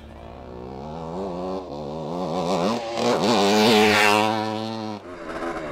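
1971 Suzuki TM400 Cyclone's 400cc two-stroke engine revving up and down under throttle as the bike is ridden on a motocross track, getting louder to a peak about three and a half seconds in, then cutting off abruptly near the end.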